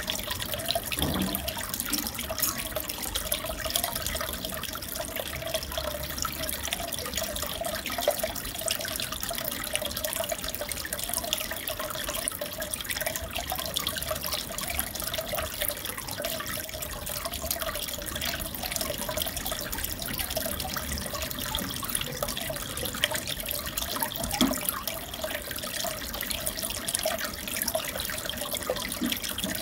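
Steady trickling and bubbling of aquarium water, with many small pops and crackles throughout.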